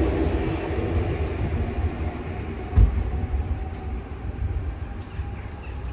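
Train rumbling away out of earshot, its sound steadily fading, with one sharp knock about three seconds in.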